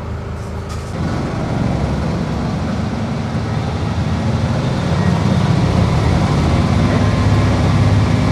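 KiHa 40 diesel railcar's engine going from a steady idle to running under power about a second in, the sound building steadily louder.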